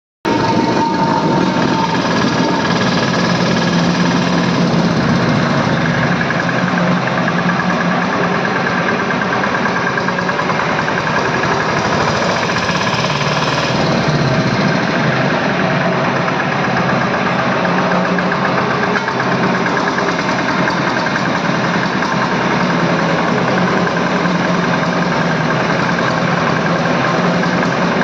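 Small engine of a walk-behind double-drum road roller running steadily as the machine rolls across a concrete floor.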